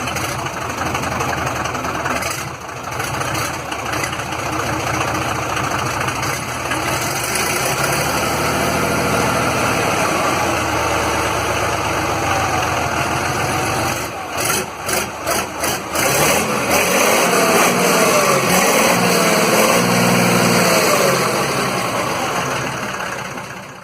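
Magirus-Deutz Mercur truck's air-cooled Deutz diesel engine running, loud and unmuffled by any water jacket. A little past halfway its sound cuts in and out several times in quick succession, and later its pitch rises and falls as it is revved.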